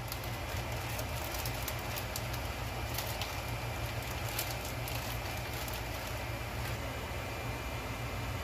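Steady hiss of a gas burner under a skillet of simmering risotto, with scattered small clicks and pops as a wooden spoon stirs kale and chicken into it.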